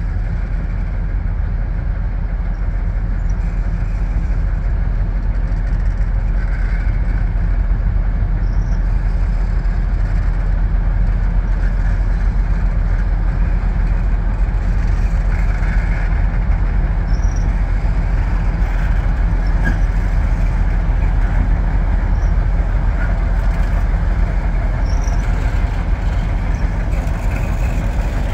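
Soviet-built M62 'Gagarin' diesel locomotives hauling a freight train, their two-stroke V12 engines running with a steady low drone. The sound grows slightly louder as the train slowly approaches and draws level.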